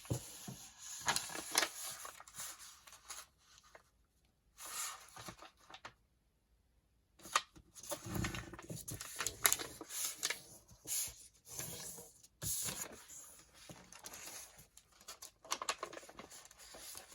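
Sheets of paper, tea-stained paper among them, being handled and slid into a stack: rustling and crinkling in short spells with small taps, with a brief silence about six seconds in.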